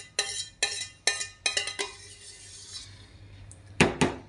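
Stainless steel mixing bowl clinking and ringing under a quick run of spoon knocks and scrapes as the filling is scraped out into the pan, then two louder clanks near the end.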